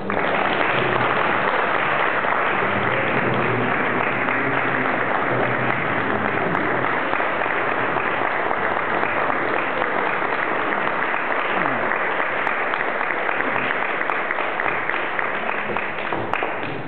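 Audience applauding at length, easing off near the end.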